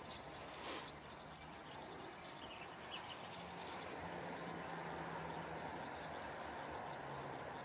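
Insects chirring in a steady, high, even drone, with a faint low hum for a few seconds midway.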